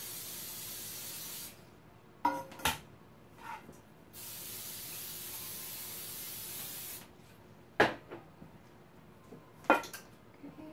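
Aerosol cooking spray hissing in two long sprays, one stopping about a second and a half in and the next lasting about three seconds, as round metal cake pans are greased. Short sharp knocks of the metal pans being handled and set down on the counter come between the sprays and after them.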